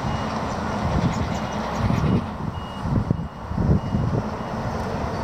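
Wind buffeting the microphone in uneven gusts. A faint, high electronic beep repeats irregularly about every half second to a second.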